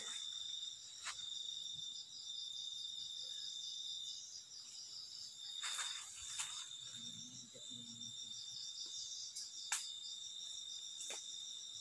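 Night insects chirping in a steady, fast-pulsing high chorus, with a few sharp clicks scattered through it.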